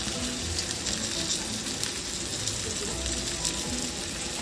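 Flour-dusted fish fillets frying in oil in a pan: a steady sizzle with small crackles.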